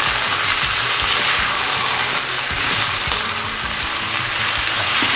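Raw beef pieces frying in hot oil with fried onions in a nonstick pan while being stirred: a steady, loud sizzle with stirring sounds, as the meat begins to sear.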